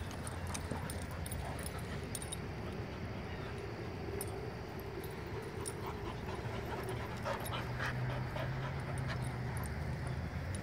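Several dogs at rough play, panting and making brief vocal sounds, over a steady low hum.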